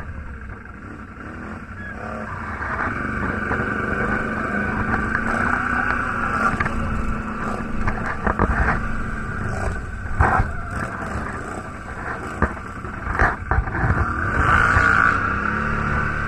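Quad bike (ATV) engine running while riding over a rough dirt trail, its note swelling and easing with the throttle and picking up about two seconds in. Knocks and rattles from the machine jolting over bumps come through, loudest around the middle.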